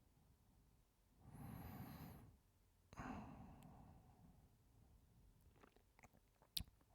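A man breathing heavily close to the microphone: two long breaths, the first with a faint whistle, then a run of small mouth clicks with one sharper click near the end.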